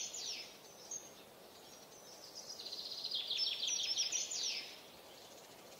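A songbird singing: the tail of one song, then about two and a half seconds in a full song, a fast run of high repeated notes ending in a quick falling flourish.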